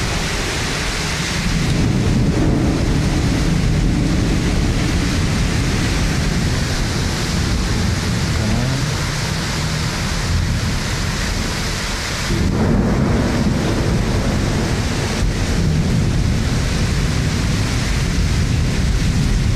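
Heavy thunderstorm: steady downpour of rain with rolling thunder rumbling low underneath. The thunder swells about two seconds in and again, more suddenly, about twelve seconds in.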